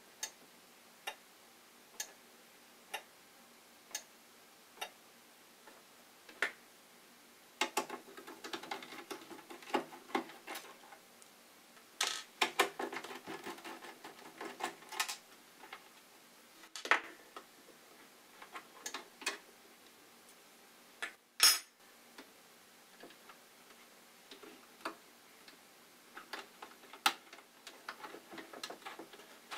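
Sharp clicks, about one a second at first, then bursts of irregular clicking and light clatter of small hard objects, with one loud click about two-thirds of the way through.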